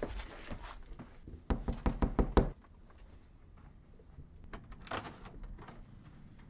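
A quick run of about six loud knocks on a house door, then fainter clicks a couple of seconds later as the door is opened.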